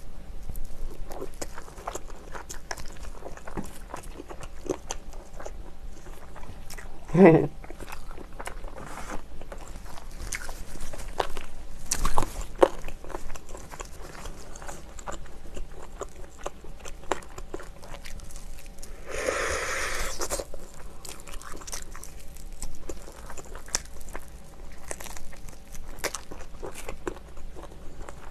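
Close-up chewing of sauce-coated fried chicken: steady small crunches and wet mouth clicks. A short hum comes about seven seconds in, and a sharp click, the loudest sound, about twelve seconds in.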